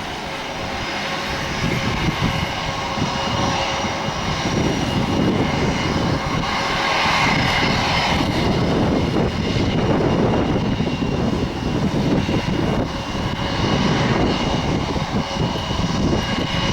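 Jet engines of an Airbus A330 airliner: a steady whine of several held tones over a low rumble, growing a little louder after the first few seconds.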